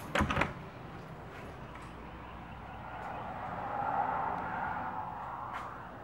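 A wooden interior door in a travel trailer sliding open with a short rattling clatter in the first half second. A soft rushing noise follows and swells around four seconds in.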